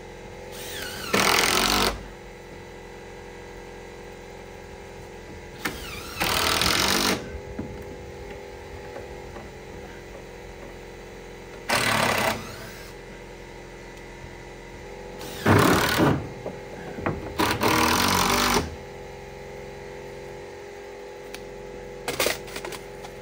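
Impact driver sinking screws through siding boards into the framing, in about five short rattling bursts of up to a second each, with a steady mechanical hum underneath.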